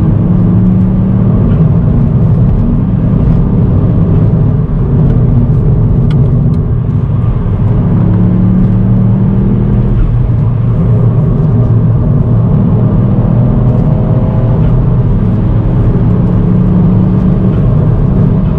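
Ford Fiesta ST's turbocharged 1.5-litre three-cylinder engine running under way, with road noise. Its note climbs in pitch several times as the car accelerates.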